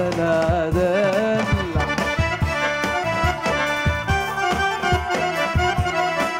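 Live Arabic band music. A wavering melody line ends a couple of seconds in and gives way to an instrumental passage of held notes over a steady percussion beat.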